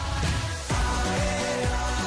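Pop music track with a steady beat and deep bass notes that slide downward in pitch; it gets louder a little under a second in.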